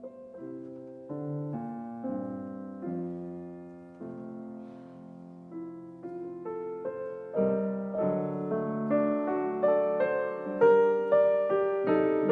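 Background solo piano music: struck notes and chords that fade after each stroke, becoming louder and busier about seven seconds in.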